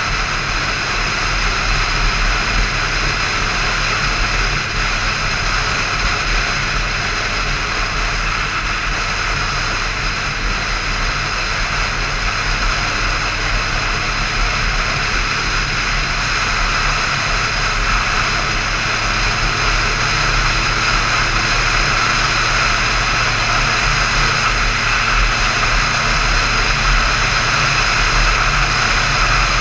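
Motorcycle cruising at steady speed: wind rushing over the handlebar-mounted camera with the engine running evenly underneath, no revving.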